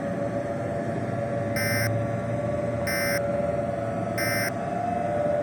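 Emergency Alert System end-of-message signal: three short buzzy digital data bursts, about 1.3 s apart. Under them runs a steady droning hum.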